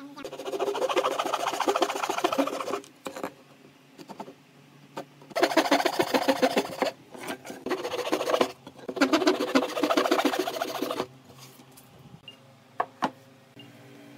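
Hand saw cutting through a small pine strip in three spells of quick back-and-forth strokes, with a couple of light knocks near the end.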